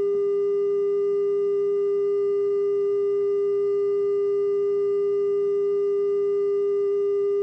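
A steady electronic test tone held at one pitch without a break, with faint hiss from the VHS tape playback underneath.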